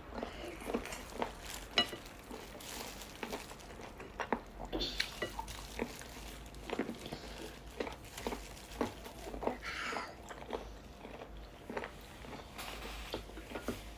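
Close-up chewing and mouth smacks of someone eating sinigang, heard as a steady stream of irregular short clicks and smacks.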